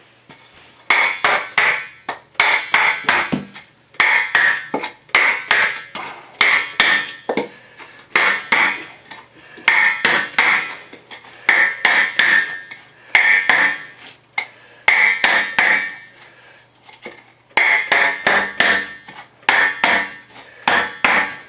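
Repeated hand tamping of wet backfill dirt in a trench with a flat metal tool: quick strikes in bunches about once a second, each with a short metallic ring, pausing briefly about two-thirds through.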